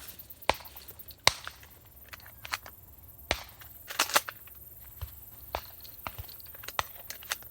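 Scattered sharp pops at uneven intervals, about a dozen, the loudest about a second in: shotgun reports around a dove field.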